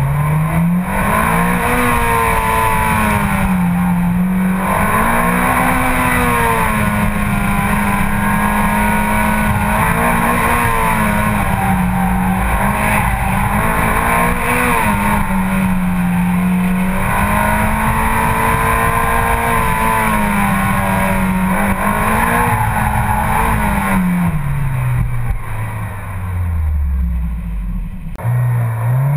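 Mitsubishi Lancer Evolution X's turbocharged four-cylinder engine driven hard through an autocross course, its pitch rising and dipping again and again as the throttle goes on and off between cones. Near the end the revs fall away steadily as the car slows.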